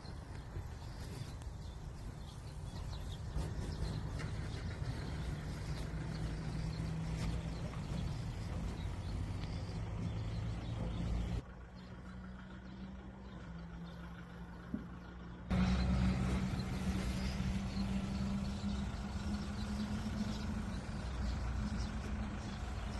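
A vehicle engine running nearby: a steady low hum with a few held low tones over a rumble. It drops to a quieter level for about four seconds midway, then comes back louder.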